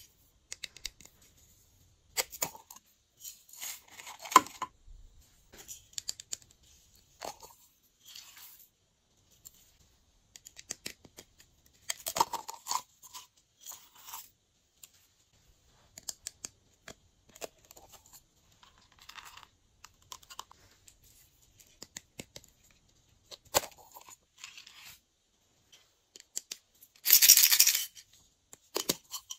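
Glass glitter jars and their screw lids handled over a glass dish of slime: short clicks and rattles as lids are worked and glitter and star sequins are shaken out onto the slime. Near the end a lid is twisted off a jar with a grating scrape, the loudest sound.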